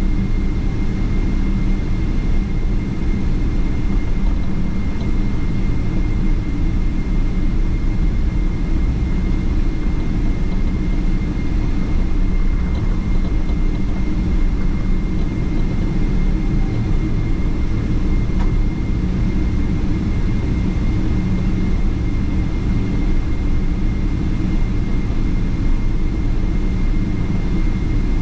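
Boeing 777-300ER's GE90 turbofan engines running steadily, heard from inside the passenger cabin: a constant low rumble and rush of noise with a thin, steady whine on top.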